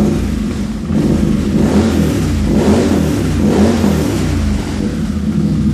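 CFMOTO Z-Force 800 V-twin engine running through a Two Brothers slip-on exhaust, blipped up a few times between about one and four and a half seconds in and dropping back to idle, with a deep, pretty loud note.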